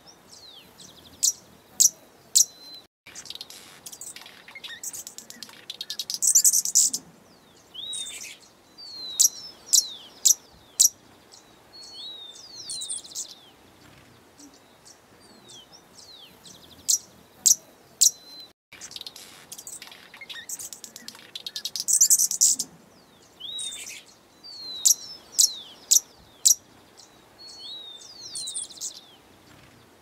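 Songbirds chirping: sharp high chirps and short falling whistles in irregular clusters. The same stretch of birdsong repeats about every 16 seconds, with a brief dropout each time it restarts, as in a looped recording.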